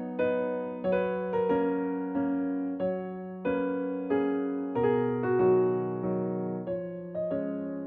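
Background music on an electric piano: gentle chords and single notes struck about twice a second, each fading before the next.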